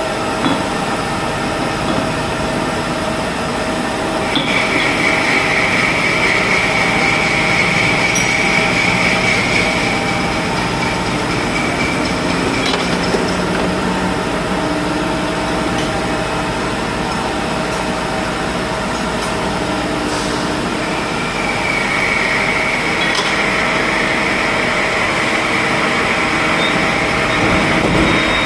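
CNC milling machine running with a steady mechanical hum. A high whine joins about four seconds in, lasts several seconds, and returns in the last third.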